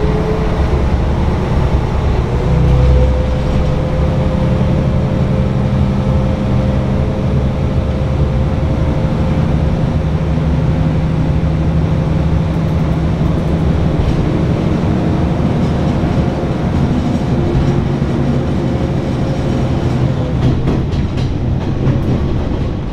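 Diesel railcar running under power, heard from inside the cabin: a steady engine drone with a held whine. The wheels click over rail joints near the end.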